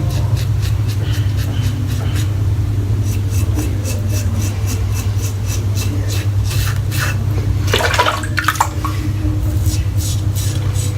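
Aluminium safety razor scraping through lathered stubble in quick repeated short strokes, a tinny cutting sound over a steady low hum. About eight seconds in there is a brief burst of running water.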